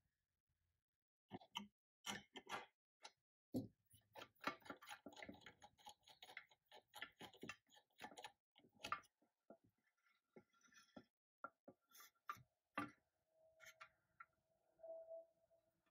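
Scattered small metal clicks and taps from a threaded screw rod on a steel jig being turned while the toy's pressed-steel body is handled against it. The clicks come thickest through the middle, and a faint steady tone sounds near the end.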